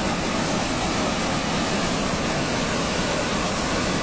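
Steady roar of a large mass of rushing water, even and unbroken, as from a dam breach torrent.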